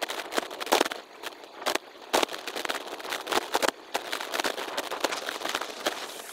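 The sound of a bicycle ride sped up six times: the rolling, rattling ride noise turns into a dense, irregular crackle of sharp clicks over a hiss, with no low rumble.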